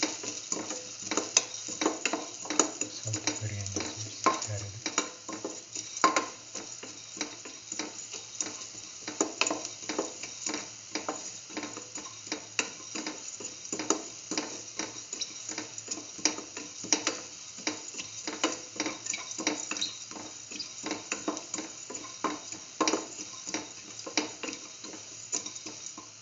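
Cumin and coriander seeds sizzling in a little hot oil in a steel pan as they are stirred, with a steady hiss and many sharp clicks and scrapes, several a second.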